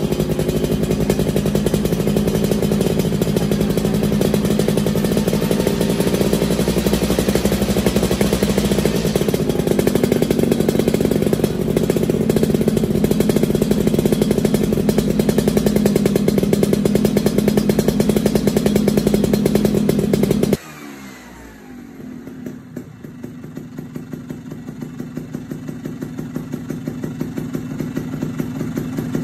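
Two-stroke engine of a Vespa Cosa 150 fitted with a Malossi 177 cast-iron cylinder kit and a Spaco 24 carburettor, running steadily with a slight rise and fall in pitch. About twenty seconds in, the sound cuts abruptly to a much quieter, evenly pulsing engine note that grows steadily louder.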